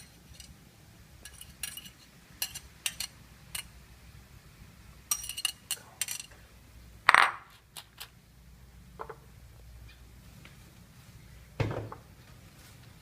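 Kitchenware clinking and knocking during food preparation: scattered short clinks of dishes and utensils, with a louder knock about seven seconds in and another near the end.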